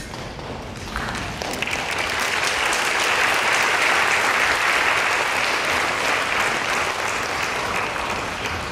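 Audience applauding, swelling about a second in and holding steady before easing off near the end.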